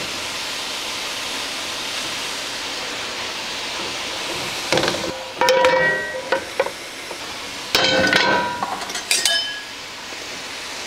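Lion's mane mushrooms sizzling in oil in a hot frying pan, then, from about five seconds in, a series of metal clanks with brief ringing as a cast-iron skillet is set down on top of them as a press.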